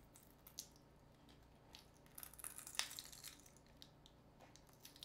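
Faint clicks and crinkly scraping of a metal tool prying at a stubborn smartphone battery stuck in place. Mostly quiet, with a few small ticks near the start and a busier run of clicks and crinkling in the middle, one click sharper than the rest.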